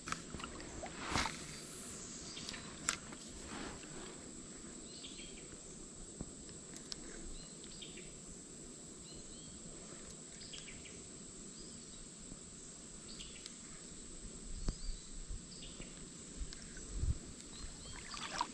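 Quiet creek-side ambience: a steady, high-pitched insect drone over a low hiss, with scattered faint clicks and knocks.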